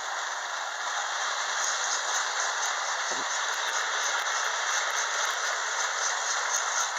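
Lionel electric toy train running on its track, a steady rattling run of wheels and motor, with faint clicks and a soft knock about three seconds in.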